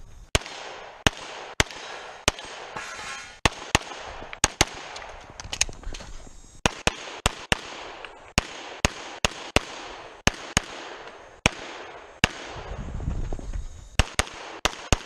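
Pistol shots from a 2011-pattern Limited-division handgun, about thirty sharp reports fired in quick pairs and short strings, with brief pauses between groups.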